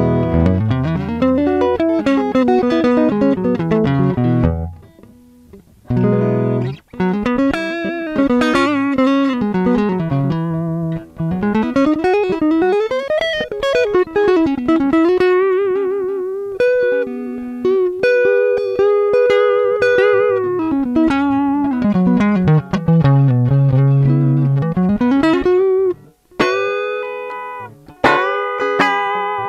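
Telecaster-style electric guitar with Lollar pickups, played through an amp: a single-note lead melody full of string bends and wide vibrato, with short breaks about five seconds in and near the end.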